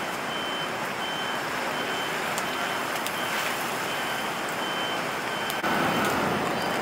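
Steady hiss of rain and traffic on a wet street, with a short high beep repeating about every 0.7 seconds, typical of a pedestrian crossing's audible signal. About five and a half seconds in the beeping stops and a louder, heavier hiss takes over.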